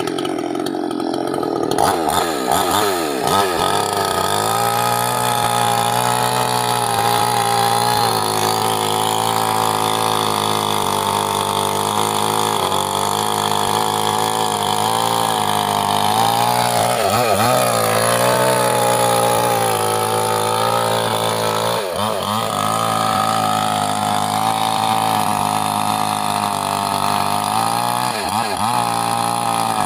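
Chinese-made Stihl-type mini two-stroke petrol chainsaw running at high revs while cutting teak. Its engine note sags and recovers a few times: a couple of seconds in, about halfway through, and twice more near the end.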